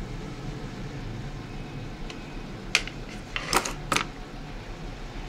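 A cluster of sharp clicks and light knocks, about three to four seconds in, as an opened iPhone 6 Plus body and its display assembly are handled and set down on a silicone repair mat, over a steady low fan hum.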